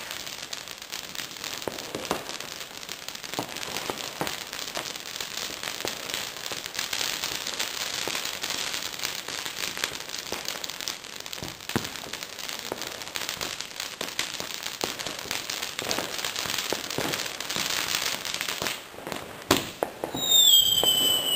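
Ground fountain firework fizzing and crackling steadily as it sprays sparks. Near the end it dies away and a louder whistling firework goes off, its whistle sliding down in pitch.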